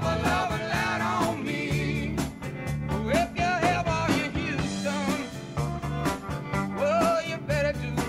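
Background music: an upbeat band recording with a steady beat and bass, and a wavering lead melody over it.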